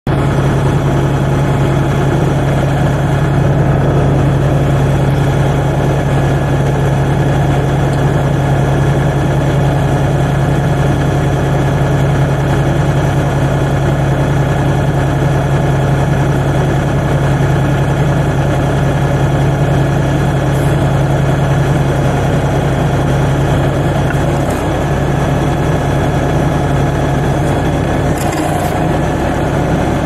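Diesel engine of an LS backhoe idling steadily, a constant low hum with no change in speed.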